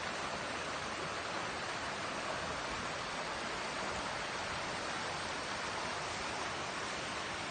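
A river rushing and flowing, a steady even hiss of moving water.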